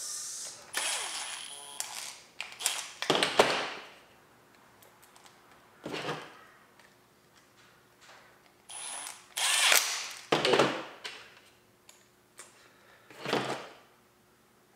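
Cordless drill-driver driving screws into a gel blaster's plastic body, running in a series of short bursts with pauses between as each screw is seated.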